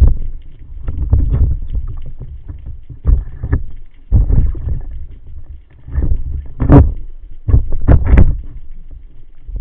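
Water sloshing and rushing against the camera in uneven surges, with two sharper splashes near the end.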